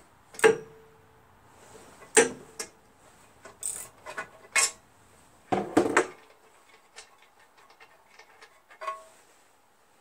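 Metal tool clinks and knocks on a Briggs & Stratton 11 HP engine while its spark plug is being removed: scattered sharp clinks, one ringing briefly, then a run of faint quick clicks late on.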